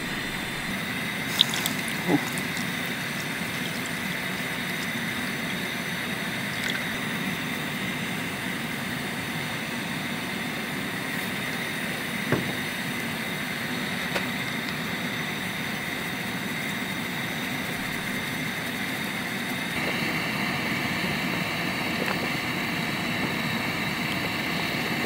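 Gas camp stove burner hissing steadily under a pot of chicken broth that is bubbling at a boil, with a few light knocks. The sound grows a little louder and brighter about twenty seconds in.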